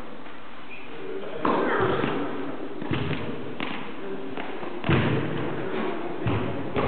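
Tennis rally: a tennis ball struck by rackets and bouncing on the court, about six sharp hits and bounces a second or so apart.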